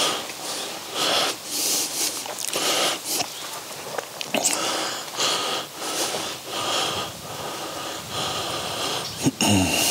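A person breathing close to the microphone, one noisy breath after another at an uneven pace. Near the end there is a short vocal sound falling in pitch.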